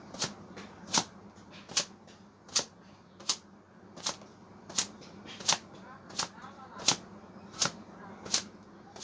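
A cotton towel slapped against long wet hair to dry it: a steady run of about a dozen sharp slaps, one roughly every three-quarters of a second.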